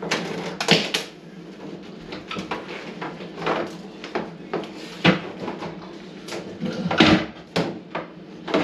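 Scattered knocks and clunks, about six of them spread unevenly, over a steady low hum in a small room.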